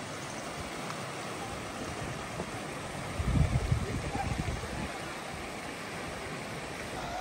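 Shallow creek running over rocks, a steady rush of water, with a brief low rumble on the microphone about three seconds in.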